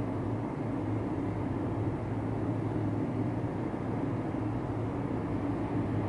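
Vacuum cleaner running steadily, a constant low hum under rushing air as it sucks at a hanging screen.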